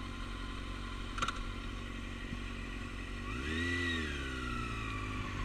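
Motorcycle engine idling steadily. About three seconds in it revs up briefly, rising and then falling in pitch, and settles back into a steady run.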